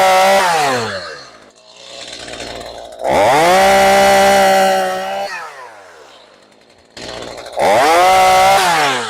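Stihl MS 212 two-stroke chainsaw revved up three times, each time held at high revs for one to two seconds before falling back to idle.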